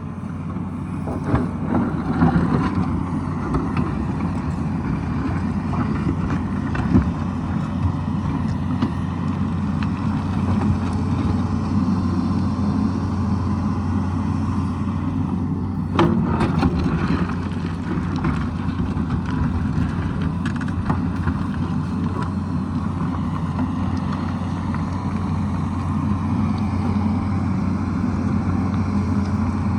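Tata Hitachi excavator's diesel engine running steadily under working load, with a few sharp knocks of the bucket working rock and soil, the sharpest about sixteen seconds in.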